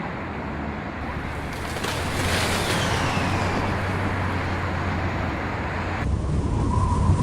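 A loud, steady rushing noise, with a falling whoosh about two seconds in and a sudden change in the noise about six seconds in.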